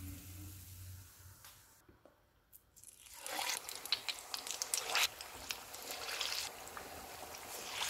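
Hot oil sizzling and crackling as flour-slurry-coated samosa pinwheels deep-fry in a pan, starting about three seconds in after a nearly silent moment.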